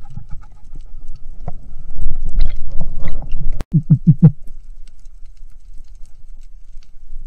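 Underwater recording through a camera housing: low rumbling water noise with scattered clicks and knocks, louder for a second or two before the middle. Just before the middle there is a sharp click, then four or five quick low pulses, then a quieter rumble.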